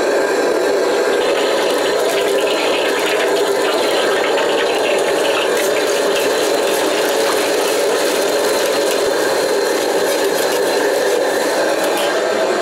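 Steady, loud roar of a commercial wok station's gas burner and extractor, with minced meat sizzling and crackling in hot oil in a carbon-steel wok and the metal ladle scraping and clinking against it.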